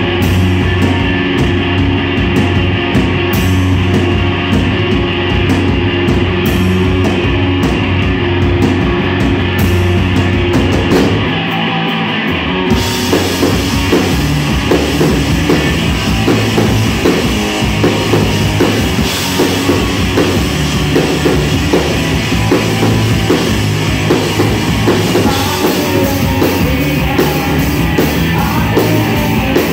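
Live rock band playing electric guitars over a drum kit. About twelve seconds in, the low end drops out briefly. The full band then comes back in with a steady beat and constant cymbals.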